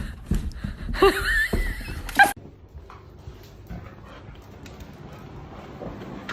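Dog whimpering in short, high, wavering cries about a second in. These stop abruptly, leaving a quieter stretch with faint ticks.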